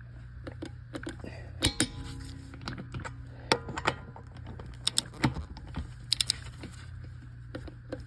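Torque wrench being worked on the lug nuts of a truck wheel, giving irregular sharp metallic clicks, a few in quick succession, as each nut is brought up to torque.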